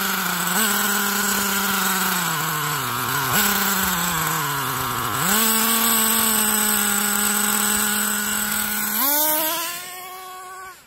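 Small nitro glow engine of an RC truck idling while its carburetor is being adjusted: the engine speed sags slowly and picks back up several times, holds steady for a few seconds, then revs up sharply near the end and fades.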